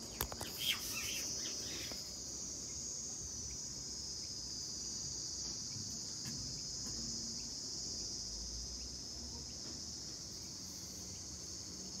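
Cricket trilling steadily, one continuous high-pitched buzz without pauses. A few brief sharp sounds about half a second in are the loudest moments.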